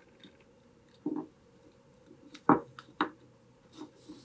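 Hand-handling sounds of paracord being fed on a wire through the holes of wooden nunchaku sections: quiet rubbing with a few short clicks and knocks, the sharpest about two and a half seconds in and another half a second later.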